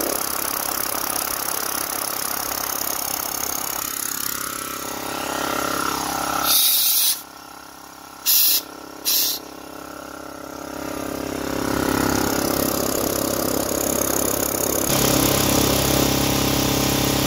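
Belt-driven DeWalt DXCM601 60-gallon air compressor running steadily as it builds tank pressure, a sound the owner finds weak so far, leaving him unsure the pump is working properly. A few short loud bursts of noise cut in about seven to nine seconds in.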